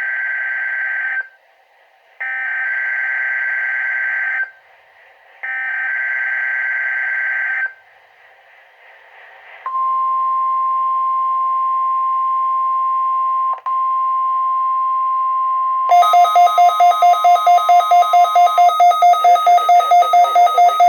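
NOAA Weather Radio weekly test: three bursts of warbling SAME digital header tones, each about two seconds with short gaps. Then the steady 1050 Hz warning alarm tone holds for about nine seconds. Near the end a rapidly pulsing electronic beep, about four a second, starts up over it and keeps going.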